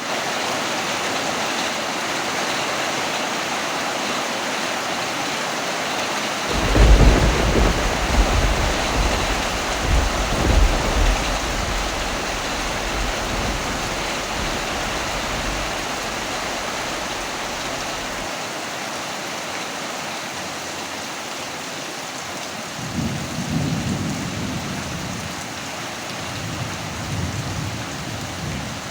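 Steady rain throughout, with two rolls of thunder: a loud rumble starting about a quarter of the way in that swells and fades over several seconds, and a weaker one near the end.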